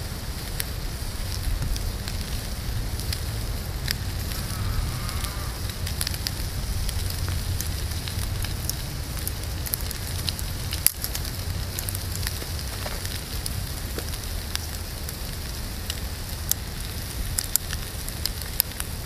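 Bacon sizzling in a small titanium frying pan over a wood-fired gasifier stove, with scattered crackling pops from the burning wood and fat. A steady low wind rumble on the microphone runs under it.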